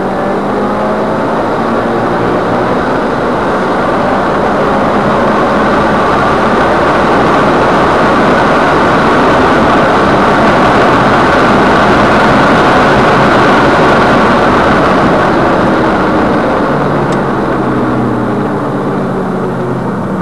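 Subaru Impreza WRX STI's turbocharged flat-four running hard down a wet straight, under a loud rush of wind and road noise that builds to a peak about midway. Near the end the engine pitch drops as the car slows for the corner.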